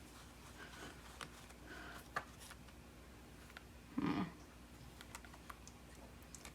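Faint, scattered clicks and taps of small parts being handled during an iPod repair, with a short low voice-like sound about four seconds in.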